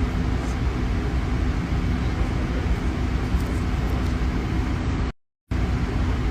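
A steady low rumble with a faint steady hum, cut off by about half a second of dead silence near the end before it resumes.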